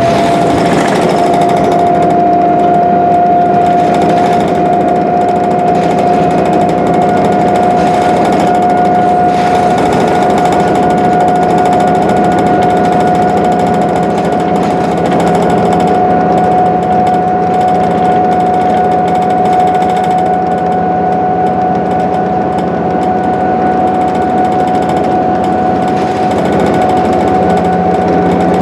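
Inside an articulated diesel transit bus cruising at steady speed: the Cummins ISL 8.9-litre diesel engine runs with a dense rattly drone, over which a steady high whine from the drivetrain rises slightly in the first second and then holds.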